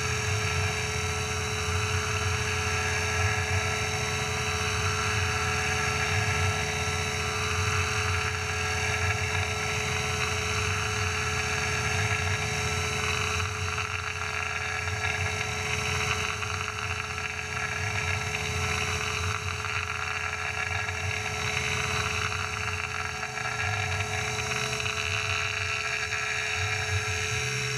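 Tormach PCNC 1100 CNC mill roughing an aluminum plate with a half-inch three-flute end mill under flood coolant. The spindle and cutter run steadily through the cut, a constant whine over cutting and coolant noise.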